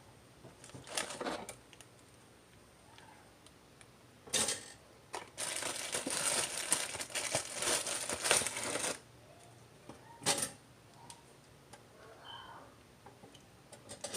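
Crinkling and rustling of plastic packaging for several seconds, with sharp clicks and knocks before and after it.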